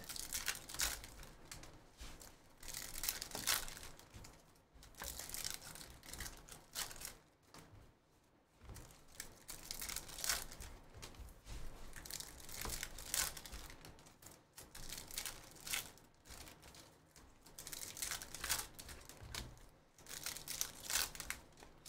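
Foil trading-card pack wrappers crinkling and tearing as they are ripped open by hand, in irregular bursts with short pauses between them.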